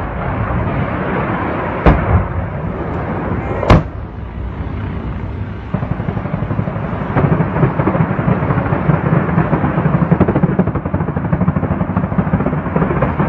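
Gunfire during a military attack: two sharp single shots about two seconds apart over a steady rumble, then from about six seconds in a long run of rapid, dense pops.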